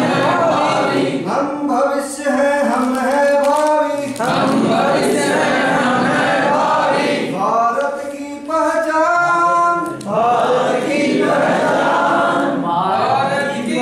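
Group of men singing a Hindi song together in unison without instruments, in held phrases of a few seconds with short breaks between them.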